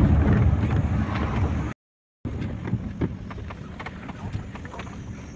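Road noise inside a moving car, with wind buffeting the microphone at first. The sound drops out for half a second a little under two seconds in, then goes on quieter with a few light clicks.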